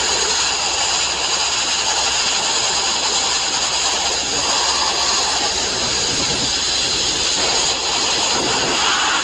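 Sandblasting nozzle blasting abrasive, a loud, steady hiss with no break.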